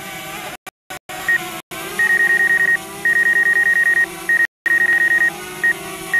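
Electronic warning beeps from a drone's remote controller: a single high tone pulsing rapidly, about nine beeps a second, in runs of one to two seconds, with a steady lower hum beneath. The sound cuts out briefly a few times.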